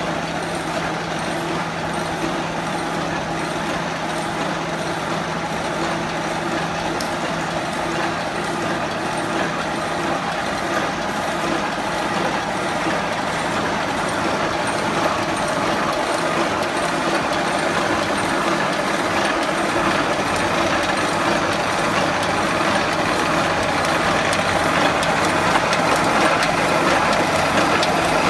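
An automatic welded roll-mesh wire welding machine running: a steady machine hum and clatter with a regular repeating beat from the welding and feed cycle, growing louder toward the end.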